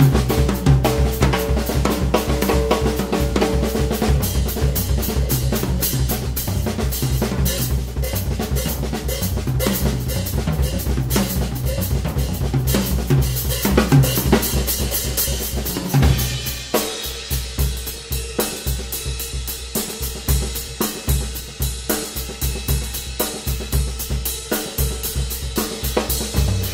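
Ludwig acoustic drum kit played in a fast improvised solo: rapid stick strokes on snare and toms with bass drum and cymbals. About two-thirds of the way through, the ringing cymbal wash drops away, leaving crisp, quick strokes over regular bass drum thumps.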